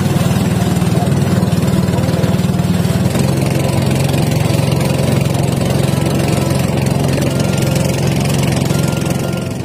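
A small fishing boat's engine running steadily as the boat travels, a low even running sound that eases off slightly near the end.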